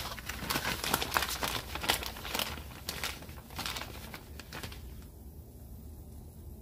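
Plastic bag of shredded cheese crinkling as it is handled, in a run of quick rustles that die away after about five seconds.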